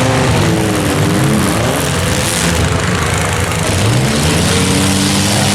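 Demolition derby compact cars' engines running and revving, their pitch rising and falling over a dense, loud mechanical din.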